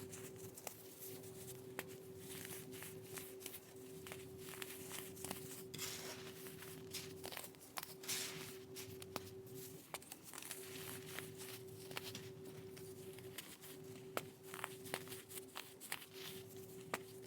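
Faint, irregular crunching and crackling of dry, coloured baking soda being crushed, with scattered sharp clicks and two short grinding stretches about six and eight seconds in, over a steady low hum.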